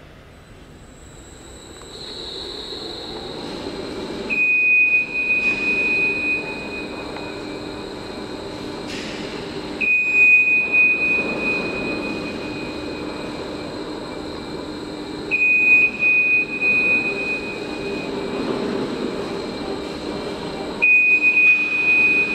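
Motorised mobile pallet racks rolling along their floor rails: a steady mechanical hum that builds over the first few seconds. A high warning beep sounds about every five and a half seconds while the racks travel.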